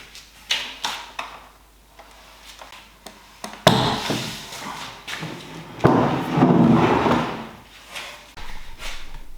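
An old ash table being taken apart by hand: a few light knocks, then two loud sudden bangs about two seconds apart, each followed by a second or so of scraping and creaking wood.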